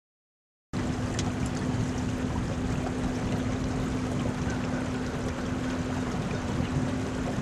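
Outboard motor of a small aluminium fishing boat running steadily under way, a constant hum over wind and water noise. It starts abruptly under a second in.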